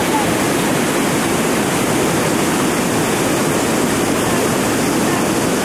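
Whitewater rapid rushing steadily: a constant, even noise of churning, pouring water.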